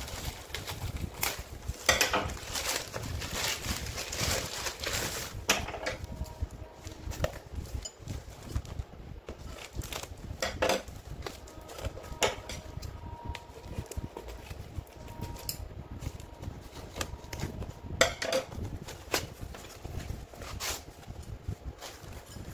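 Scissors cutting open a plastic courier mailer, with the plastic crinkling and rustling for a few seconds. After that a cardboard box is handled, giving scattered taps, scrapes and knocks against the table.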